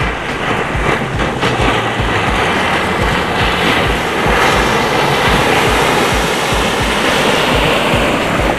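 Yamaha outboard motor running at speed as the boat approaches and passes close, with water rushing and a steady wash of wind noise, under background music with a steady beat.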